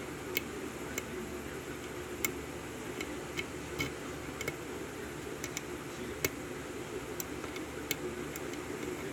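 Lock pick and tension wrench working the pins of a 5-pin Corbin Euro cylinder during single-pin picking: small irregular metal clicks, some in quick pairs, over a steady background hiss.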